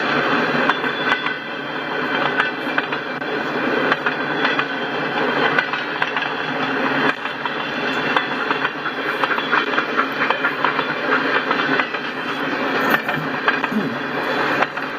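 Freight cars rolling steadily past: a continuous rumble of steel wheels on rail, with scattered clicks and clanks as the wheels cross joints.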